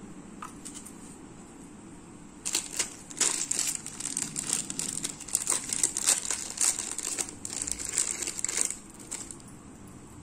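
Plastic packaging crinkling and crackling as it is handled, starting about two and a half seconds in and stopping a second or so before the end.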